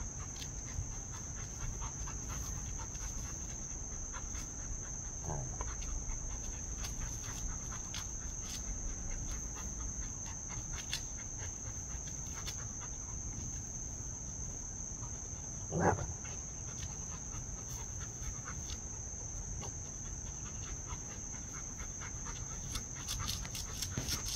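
Crickets chirring in a steady high-pitched drone, over scattered scrapes and clicks of a Rottweiler pawing at and shoving a rock across bare dirt. One short grunt about two-thirds of the way through.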